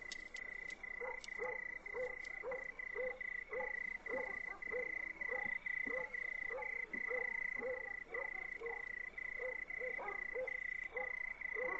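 Frogs croaking at night in an even rhythm, about two or three croaks a second, over a steady high-pitched tone.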